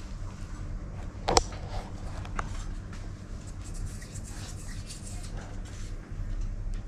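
Soft rubbing and patting of fingers dredging cuttlefish pieces in flour on a ceramic plate, with a sharp tap about a second and a half in and a smaller one a second later, over a steady low hum.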